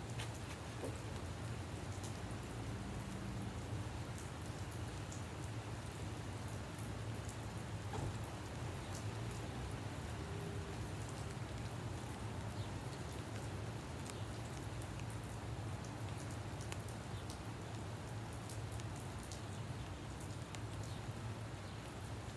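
Rain falling, with many separate drops ticking sharply through a steady patter, over a steady low hum.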